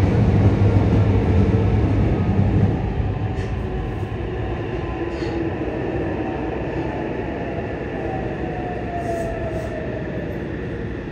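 Yokohama Subway Blue Line 3000S train, heard inside the car, braking into a station. The loud low wheel-and-track rumble eases about three seconds in, and the Mitsubishi IGBT-VVVF inverter and traction motor tone falls in pitch as the train slows, most clearly near the end.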